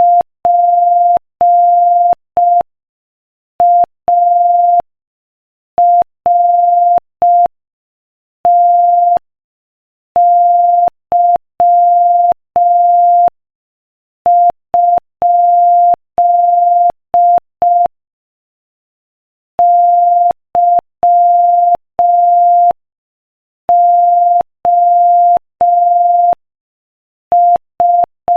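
Morse code sent at 5 words per minute as a single steady beep, keyed on and off in short dots and long dashes with silent gaps between letters and words.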